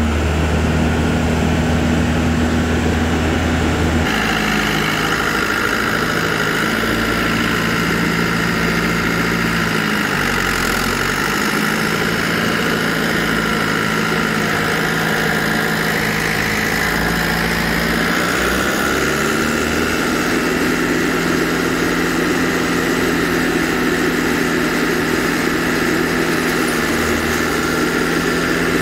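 Tractor engine driving a PTO-powered Seppi tiller, its rotor spinning as it grinds rocks and stumps into the ground; a steady loud engine-and-machine drone. The engine pitch sags briefly and recovers twice, about ten seconds in and again near nineteen seconds.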